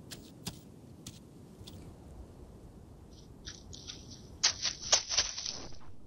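Dry leaf litter crunching and crackling, as under footsteps. A few scattered crackles come first, then a denser run of crackling starts about three seconds in and is loudest near the end.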